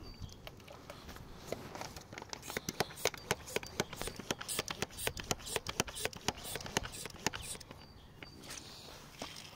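Hand sprayer head on a plastic bottle being pumped rapidly, a quick run of sharp clicks with spritzes, about four a second, starting about two seconds in and stopping shortly before the end.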